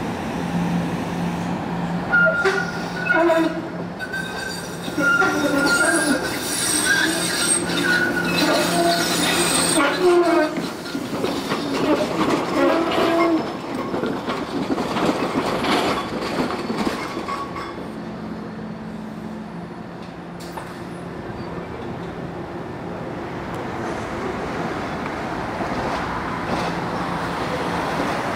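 SEPTA Kawasaki K-car trolley's steel wheels squealing on curved track. Several shifting screeching tones come and go from about two seconds in to about fourteen seconds in, over a steady low hum, then the sound settles to quieter running.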